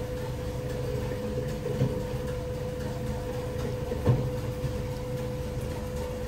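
Katsuobushi shaving machine running with a steady mechanical hum and rumble, with a couple of soft knocks, the loudest about four seconds in.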